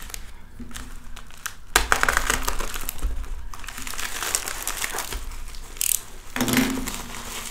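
Plastic mailing bag being slit and pulled open by hand: a run of crinkling and rustling that starts loudly about two seconds in.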